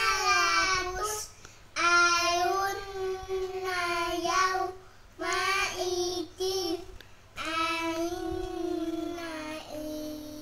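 Two young boys singing together in long, drawn-out phrases, about four of them, with short breaks between.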